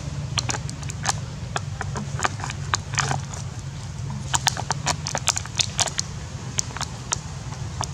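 Thin clear plastic cup crackling and clicking irregularly as a young monkey grips it and pushes its face into it, the clicks coming in quick clusters, thickest about halfway through. A steady low hum lies underneath.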